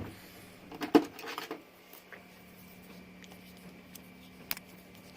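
Small handling noises of a lock and tools on a bench: a sharp knock about a second in with a brief clatter after it, then a few faint clicks.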